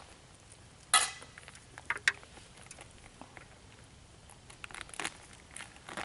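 Hands working a halved beer can down into dry leaf litter and soil: crunching and crackling of leaves and earth, with a sharp crackle about a second in, two quick clicks soon after, and more small rustles near the end.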